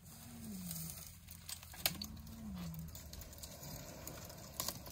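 Faint lion calls, two drawn-out calls that rise and fall, each about a second long, one at the start and one about two seconds in. Sharp snaps and rustles of twigs come from an elephant browsing a thorn bush, the loudest a crack about two seconds in.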